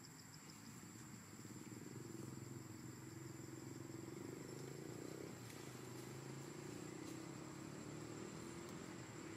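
Faint steady low engine hum, growing a little about one and a half seconds in, with rapid insect chirping at the start and a thin steady high whine above it.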